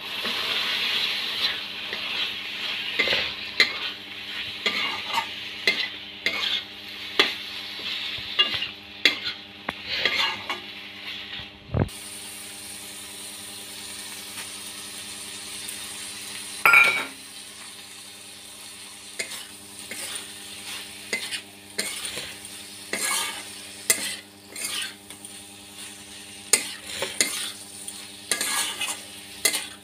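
Steel spatula scraping and stirring boiled tadka dal (dried peas) and scrambled egg in a kadai, in many short irregular strokes over oil sizzling. The sizzle is loudest in the first twelve seconds. About 17 seconds in there is one loud, ringing metal clank.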